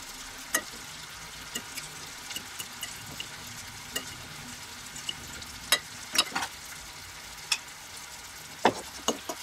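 Metal spoon clinking and scraping against porcelain plates while sausage slices are lifted out of beaten egg: a dozen or so sharp clinks, the loudest about six seconds in and near the end. A steady frying hiss from bacon in a pan runs underneath.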